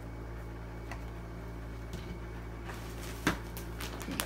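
Soft rustling and a few light clicks from things being handled, over a steady low hum; the sharpest click comes a little past three seconds in.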